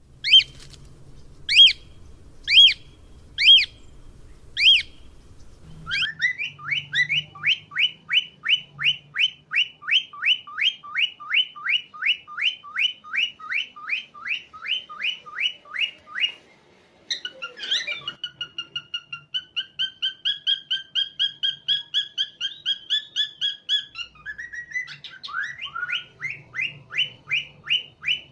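Cockatiel calling: five loud, separate whistled calls, then long runs of rapid repeated chirps, broken by a short pause about two-thirds of the way through.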